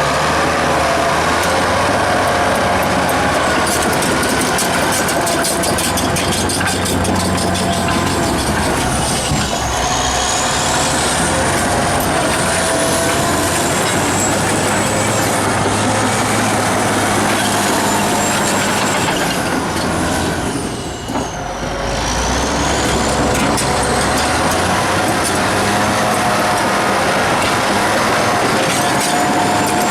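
Caterpillar D8T bulldozer running, its C15 diesel engine giving a loud, steady mechanical din. A high whine slides up and down over it, and the level dips briefly about two-thirds of the way through.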